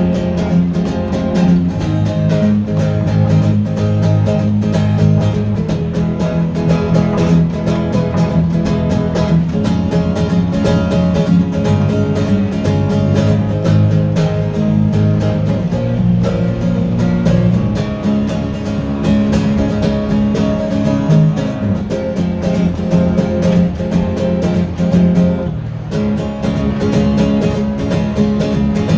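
Live acoustic guitar music, an instrumental passage of a Cantopop song played with steady strumming and picking and no singing, with a brief drop-out about 26 seconds in.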